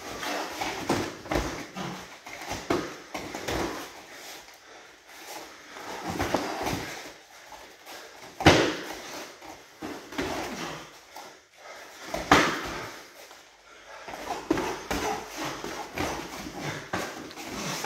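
Gloved punches and shin-guarded kicks landing on bodies in full-contact karate sparring, a run of irregular dull thuds mixed with feet stepping and shuffling on foam mats. The two hardest hits land about eight and twelve seconds in.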